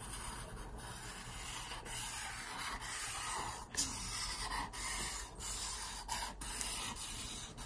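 Black felt-tip marker rubbing across paper in a series of drawing strokes with short breaks between them.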